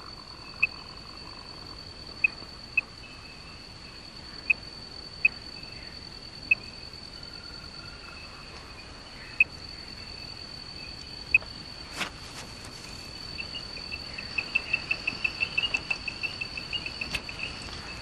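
Male tree frogs giving advertisement calls to females: single short chirps every second or two, then a quick run of chirps, several a second, near the end. A steady high insect trill runs underneath.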